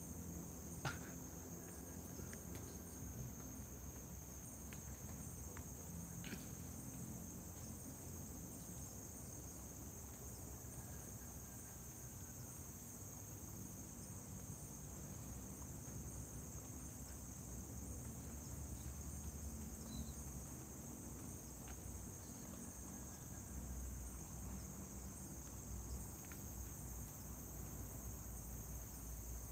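Crickets trilling in a steady, high-pitched night chorus, with a few faint clicks, the sharpest about a second in.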